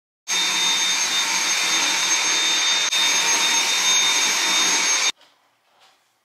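Stick vacuum cleaner running steadily with a high-pitched whine over its motor noise, switched off suddenly about five seconds in.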